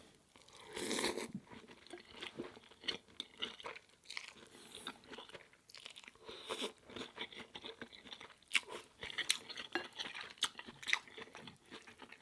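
Close-miked eating sounds: a person chewing a mouthful of ramen noodles and seaweed crisps, with irregular small crunches and wet mouth clicks, and a louder stretch about a second in.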